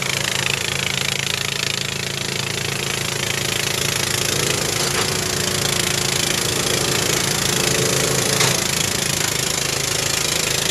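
Off-road buggy engine running steadily under way, with a steady rushing noise over it and a single knock or rattle about eight seconds in.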